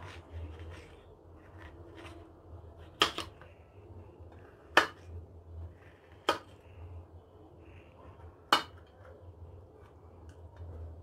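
Kitchen knife cutting watermelon into small pieces, its blade knocking sharply on the plate underneath four times, with softer scraping and handling between strokes. A steady low hum runs underneath.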